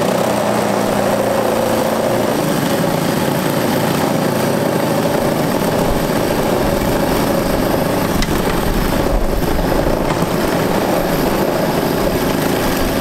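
Battery-powered electric chainsaw running steadily at full speed, its chain cutting down into the top of a flat-screen TV.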